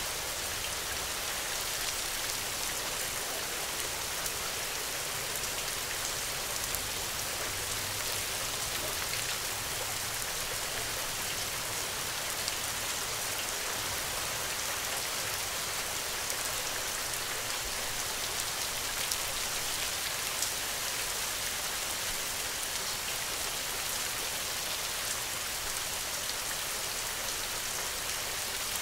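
Steady rain falling, a constant hiss with scattered sharper drop hits standing out now and then.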